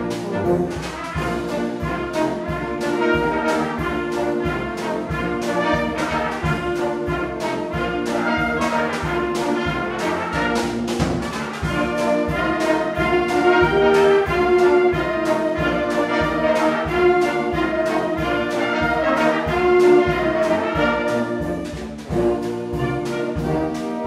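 Concert wind band playing: brass, saxophones, flutes and clarinets over a steady drum-kit beat, with a brief drop in level near the end.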